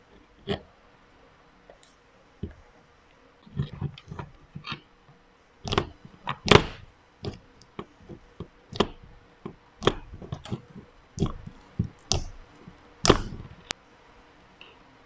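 Slime ASMR: fingers pressing and poking into thick white slime and handling plastic slime tubs, making irregular sharp pops and clicks, loudest about six and a half seconds in and again near thirteen seconds.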